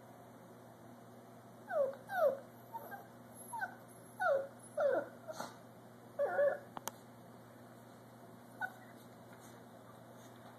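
A dog whimpering: a string of short, high whines, each falling in pitch, in two to three bunches over a few seconds, then one last whine a few seconds later. One sharp click comes in between.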